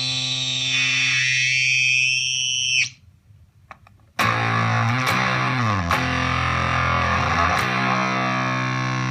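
Electric guitar through a Zvex Fuzz Factory fuzz pedal and a Roland Cube 30 amp: a held fuzzed note carries a high tone that glides down in pitch, then cuts off about three seconds in. After a short gap a new fuzzed note is struck and sustains, its low pitches sliding down and back up.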